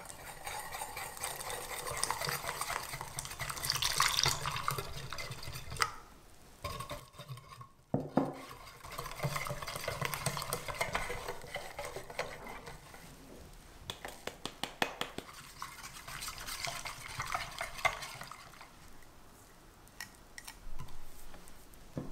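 Red silicone whisk beating egg yolk, sugar, cornstarch and milk in a stainless steel saucepan, swishing and scraping against the pan. It pauses about six seconds in, then resumes until near the end.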